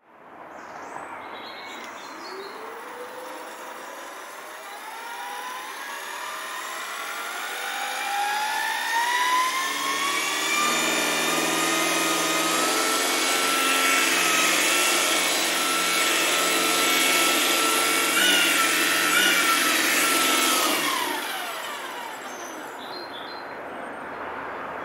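Electric radio-controlled model helicopter's motor and rotor spooling up with a rising whine, then holding a steady pitch. A few brief hiccups in the pitch come about three-quarters of the way through: the speed controller glitching a bit. The whine then falls away as the motor winds down.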